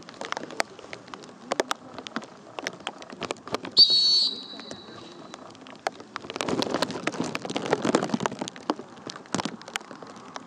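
A single shrill whistle blast, one steady note held for about a second and a half, sounds a little before the middle, as a dog-sport recall whistle. Scattered sharp clicks and patter run throughout, with a stretch of rustling noise for about two seconds in the second half.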